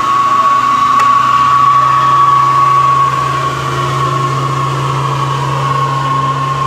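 Tanker truck's diesel engine running under load as it passes close by climbing a hill, a steady low drone with a steady high whine over it.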